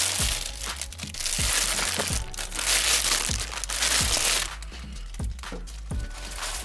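Packaging crinkling and rustling as a boxed camera is pulled out. It is loudest in the middle and dies down after about four and a half seconds, over background music with a steady beat.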